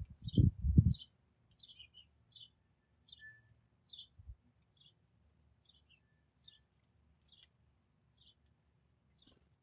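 House sparrow chirping: a steady series of short, high chirps, about one or two a second. A few low thumps in the first second are the loudest sound.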